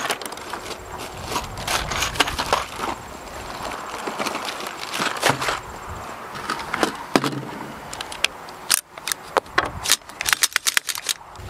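Gear being handled on a wooden bench: irregular clicks, knocks and crinkling plastic, with a quicker run of clicks near the end.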